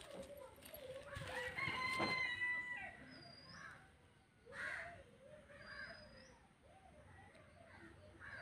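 A rooster crowing once, one long call starting about a second in and lasting about a second and a half. A small bird's short, high chirp with an upturn at the end repeats every few seconds in the background.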